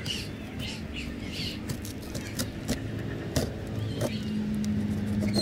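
A motor vehicle's engine running close by, a steady low hum that grows louder about four seconds in. Light taps and crinkles of a plastic-wrapped cardboard box being handled come through over it.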